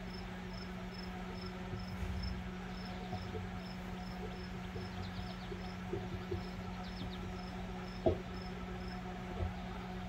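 Furrion RV microwave running with a steady low hum, a unit that runs but does not heat food. A cricket chirps in regular high pulses about twice a second, and a single short click comes about eight seconds in.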